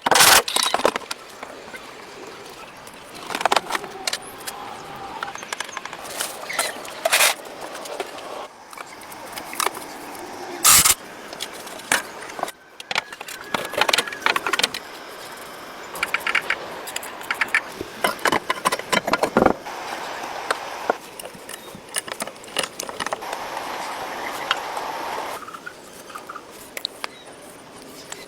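Scattered sharp metallic clicks and clinks, as of small metal parts or tools being handled, with a stretch of steady rubbing or scraping noise near the end.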